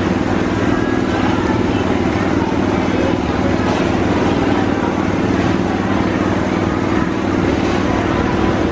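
A small engine running steadily with a low, even drone.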